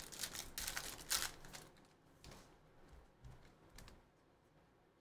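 Foil wrapper of a Panini Prizm trading-card pack being torn open and crinkled for about the first second and a half, followed by a few soft clicks as the cards are handled.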